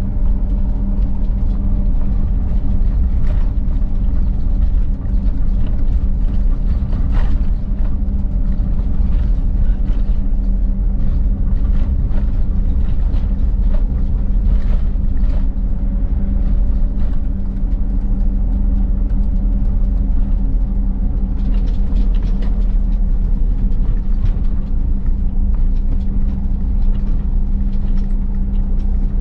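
Steady low drone of a car's engine and tyres heard from inside the cabin while driving, with a constant low hum under it.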